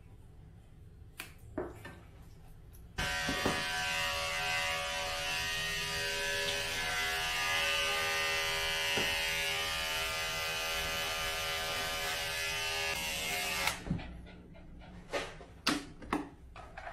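Electric dog grooming clippers switched on a few seconds in and running steadily for about ten seconds as they shave through a heavily matted coat, then cutting off. A few light clicks of handling before and after.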